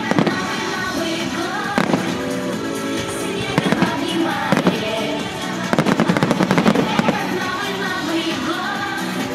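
Aerial fireworks going off over music: single sharp bangs about a second apart near the start, another at about four and a half seconds, then a rapid run of crackling bangs from about six to seven seconds.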